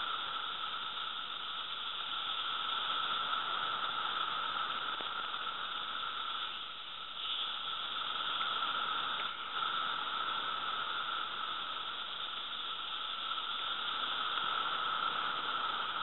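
Dense chorus of Brood II periodical cicadas (Magicicada), a steady droning hiss with a lower and a higher band. It dips briefly about seven seconds in and swells back, loud enough to read about 77 to 91 dB on a sound level meter.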